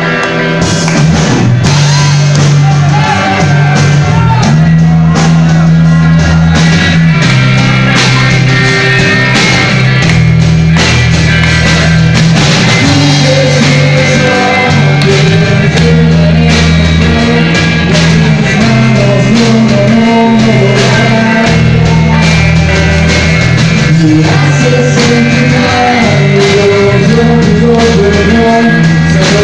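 Live rock band playing loud: electric guitars, bass guitar and drum kit, with a male singer singing into the microphone over them.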